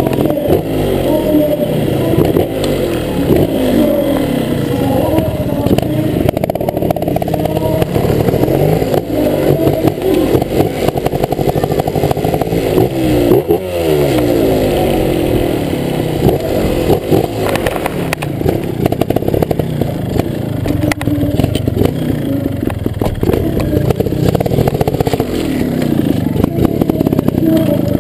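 Trials motorcycle engine revving up and down over and over, heard close up from a camera mounted on the bike, with a few sharp clattering knocks.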